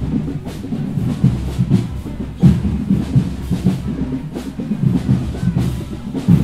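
Marching band drumline playing a cadence: a dense, steady pattern of heavy low drum strokes with snare work, and little or no horn playing heard.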